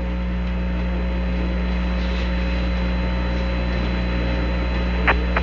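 Steady hiss and hum of an open radio channel between transmissions, with several thin steady tones running under it. A brief click comes about five seconds in.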